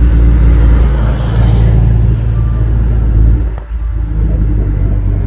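Steady low rumble of a vehicle travelling at road speed: an engine running under wind buffeting on the microphone. The level dips briefly about three and a half seconds in.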